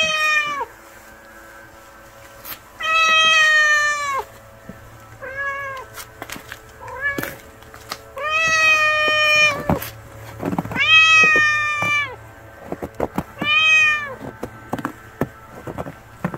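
Stray cat meowing to be fed: about seven meows, several of them long and drawn out at over a second each, with a few short ones between. Faint taps and scuffs sound between the calls.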